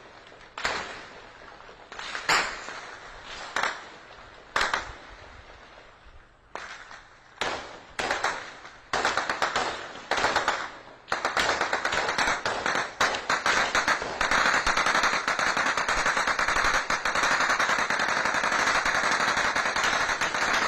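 Gunfire exchanged between armed groups, recorded on a mobile phone: single shots and short bursts about a second apart at first, coming faster until about eleven seconds in it turns into continuous rapid automatic fire, which cuts off near the end.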